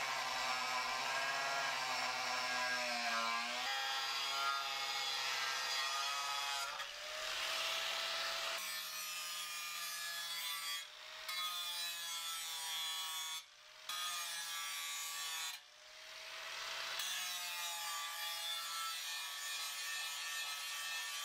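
Corded angle grinder cutting through a small piece of sheet metal on a car's front support, a steady whine that sags and rises in pitch as the disc bites, with three short breaks around the middle.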